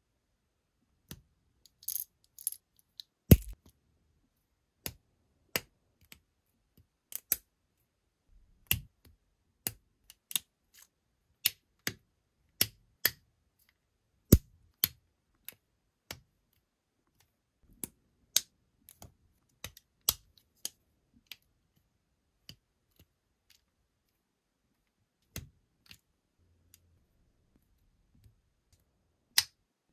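LEGO plastic bricks and plates being pressed and snapped together by hand: a string of sharp clicks, irregular, about one or two a second, with longer pauses near the end.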